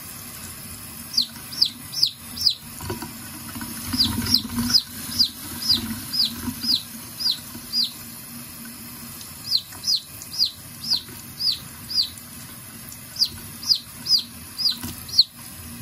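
A Red Sex Link baby chick peeping in runs of quick, high, falling peeps, about two or three a second, with short pauses between runs: distress peeps from being held and washed. Under it runs the steady splash of a tap into a sink.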